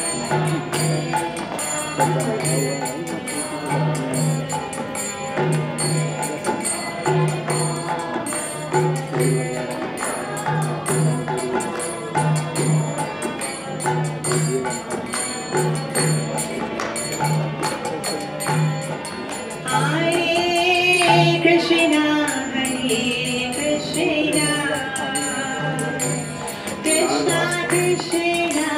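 Devotional group music played live on the floor of a stage: a steady low two-stroke beat with jingling hand percussion over it. A singing voice rises clearly above the instruments about twenty seconds in.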